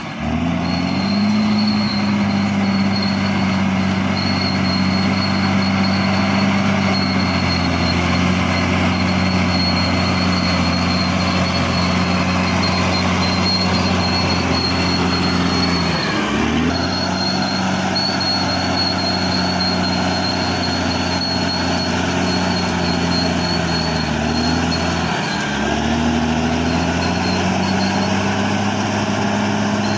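Caterpillar D6R XL bulldozer's diesel engine running steadily, with a faint high whine above it; the engine pitch sags briefly and recovers three times, about a second in, around halfway and near the end.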